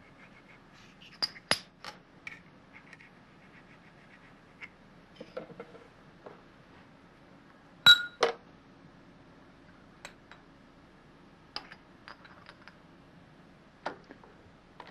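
Scattered sharp metal clinks and knocks as a steel workpiece and parallels are handled and set in a milling machine vise, the loudest a pair of knocks a little past the middle.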